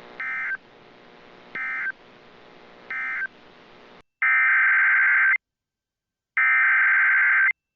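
Emergency Alert System SAME digital data bursts: three short end-of-message bursts over faint receiver hiss, then, after a sudden drop to dead silence, two longer and louder header bursts that open the next alert.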